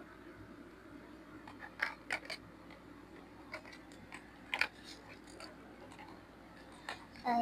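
A few short, sharp clicks and taps from small plastic toy pieces and packaging being handled, the loudest of them about four and a half seconds in.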